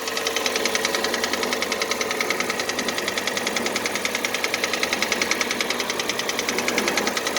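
Kia Cerato 2.0-litre four-cylinder engine idling cold with a rapid, even knock, which the owner takes for piston knock; a diagnosis found scuffed cylinder walls in cylinders 2 and 3.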